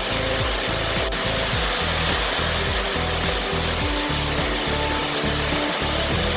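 Steady rush of a waterfall, with a low uneven rumble beneath it.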